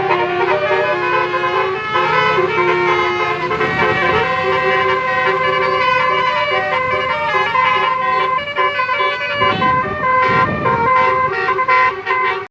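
A bus's telolet horn, a multi-tone musical air horn, playing a melody of quick stepped notes. A burst of noisy rushing sound comes in about ten seconds in.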